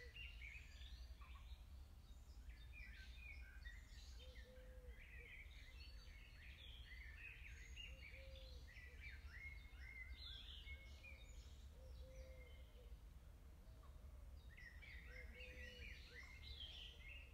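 Faint birdsong: several birds chirping and trilling in clusters, thinning out for a moment before picking up again near the end, over a low steady rumble.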